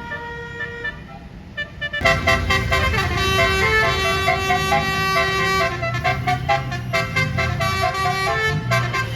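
Bus 'telolet' multi-tone air horns playing a melody, note after note. They start quieter, then come in loud from about two seconds in, with the bus engine running underneath.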